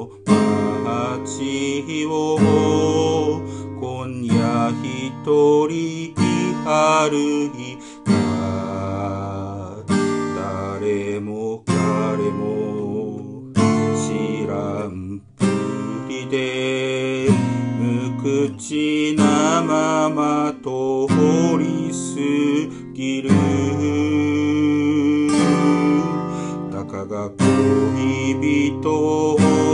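Solo steel-string acoustic guitar with a capo, picked and strummed through an instrumental passage of chords and melody notes, with a few brief pauses between phrases.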